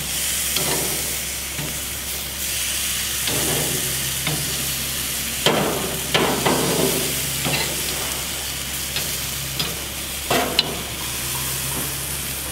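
Marinated pork loin sizzling on hot grill grates, with a steady hiss. Metal spatula and tongs click and scrape against the grates as the pieces are flipped, with sharper clicks about five and a half seconds in and again about ten seconds in.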